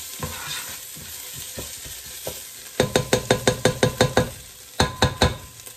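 Onions and tomato paste sizzling in a pot while being stirred with a plastic spoon, then the spoon is rapped on the pot's rim about ten times in quick succession, roughly seven knocks a second, followed by three more raps, each knock with a short ring.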